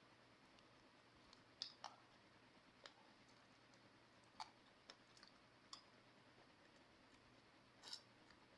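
Faint eating sounds: a handful of small, irregular clicks and smacks over low hiss, the mouth and fingers working on a whole fried fish.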